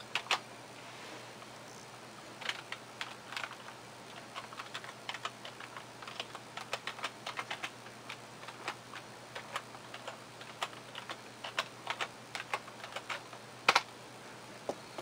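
Computer keyboard keys being pressed at a sign-in prompt: a few separate key presses, then a run of quick typing as a password is entered, ending in one louder click near the end. A faint steady low hum sits underneath.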